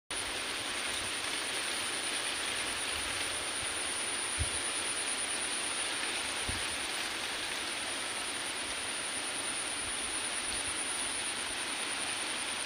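Steady outdoor field ambience: an even hiss with a constant, thin, high-pitched insect drone, and a couple of soft low thumps in the middle.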